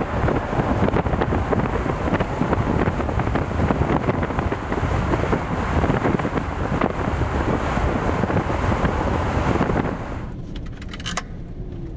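Rushing wind buffeting the microphone over road noise from a car driving at speed, easing off near the end as the car slows.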